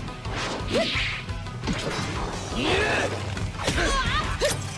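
Animated fight sound effects: several whooshes and hits as shadow clones attack and a spiked great sword is swung, over background music.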